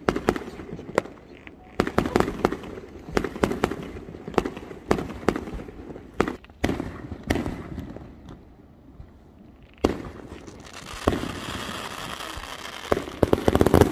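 Fireworks going off in the neighbourhood: a rapid run of bangs and cracks from bursting aerial shells, then a lull about eight seconds in. From about ten seconds in comes a steady hissing crackle, with more bangs near the end.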